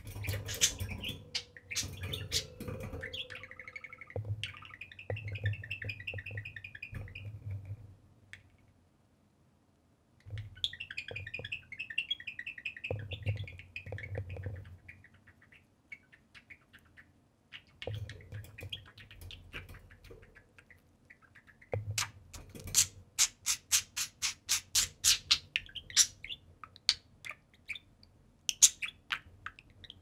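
Budgies chattering and warbling in spells, with a short silent pause partway through. Near the end comes a fast run of sharp ticks, several a second.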